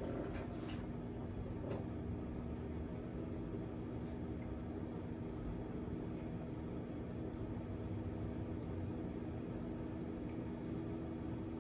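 Air fryer running with a steady fan hum. A few light clicks and taps sound in the first two seconds and once more about four seconds in.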